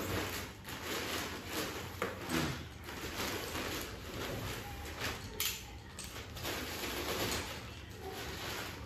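A plastic courier mailer bag rustling and crinkling in irregular bursts as it is cut open and pulled apart by hand.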